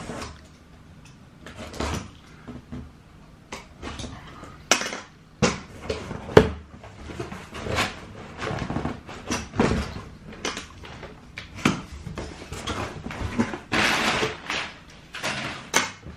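A shoe box being handled and opened: irregular knocks, taps and scrapes of cardboard, with rustling, the loudest knock about six seconds in and a longer rustle near the end.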